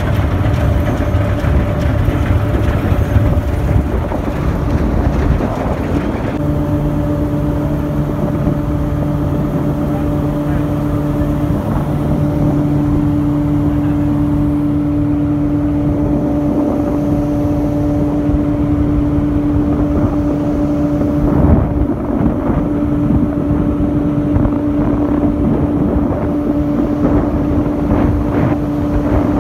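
John Deere W70 combine harvester running under load while cutting wheat: a loud, steady drone of engine and threshing machinery. A steady hum joins it about six seconds in and holds to the end.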